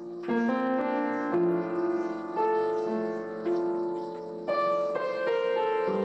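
Background instrumental music: a slow run of sustained notes, with a new note or chord struck about once a second.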